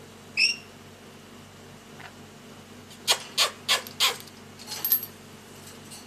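A caged lorikeet calling: one short chirp, then about three seconds in a quick run of four harsh, raspy squawks, and a brief scratchy call just before the end.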